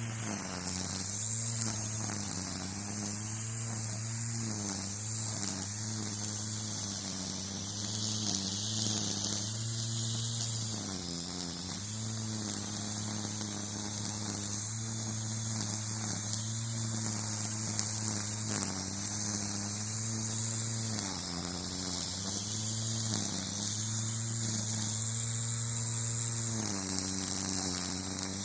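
String trimmer (weed eater) running steadily over a constant high hiss, its pitch dipping briefly several times and picking back up.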